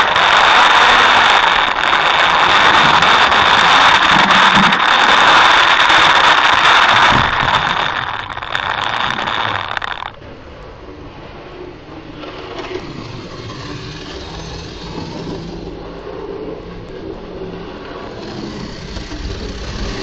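HO-scale model locomotive's small electric motor whining at a steady high pitch, with its wheels rolling on the rails, picked up by a camera riding on the locomotive. The sound fades after about seven seconds and cuts off suddenly about ten seconds in, leaving only a faint steady hiss.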